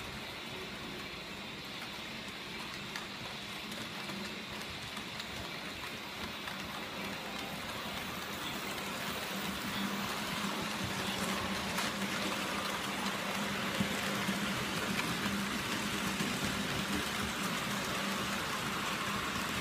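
H0-scale model freight train of covered goods wagons rolling along the track. The wheels on the rails make a steady hissing rumble that grows louder from about halfway through as the wagons pass close by.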